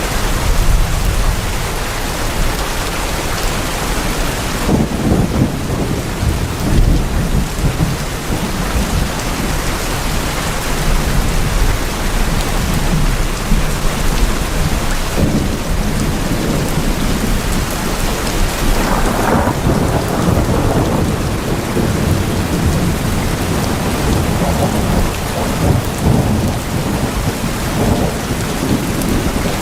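Steady heavy rain falling on tin roofs, with thunder rumbling several times.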